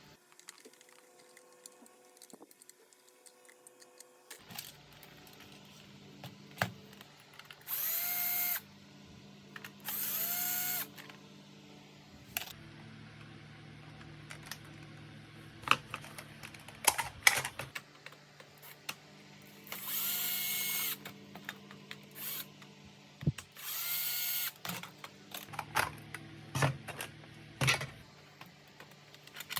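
Cordless electric screwdriver driving screws in four short runs of about a second each, each with a quick rising whine as it spins up, and sharp clicks of plastic parts and screws being handled in between.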